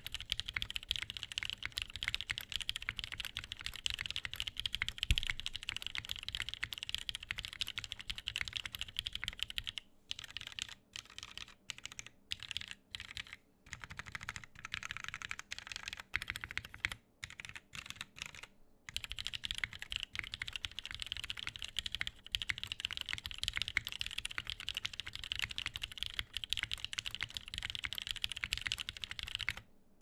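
Typing on a KFE custom keyboard with NovelKeys Cream linear switches lubed with 205g0, a polycarbonate plate and GMK keycaps: a fast, steady run of keystrokes. About a third of the way in it thins to scattered keystrokes with short pauses, then speeds up again and stops at the very end.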